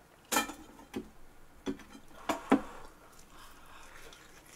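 Five short, soft clicks and taps from handling and eating butter-fried French toast, all within the first two and a half seconds.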